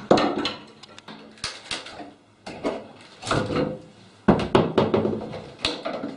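Wooden knocks, scrapes and creaks from a wooden sash window being worked on, in several separate bumps, the sharpest and loudest knock about four seconds in.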